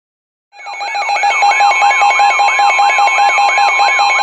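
Weather alert radio's alarm going off for a winter storm warning. It is a loud warbling siren tone that rises and falls about three times a second over steady tones, starting about half a second in.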